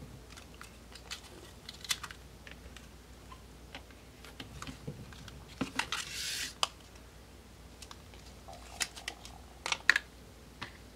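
Sheets of Thickers letter stickers and paper handled on a tabletop: faint scattered taps and clicks, a brief papery swish about six seconds in, and a quick cluster of sharper taps near the end.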